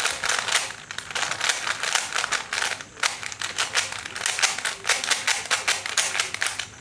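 3x3 Rubik's cube being scrambled by hand: its plastic layers turned in quick succession, giving a rapid, uneven run of clicks and clacks, many a second, with brief lulls about one and three seconds in.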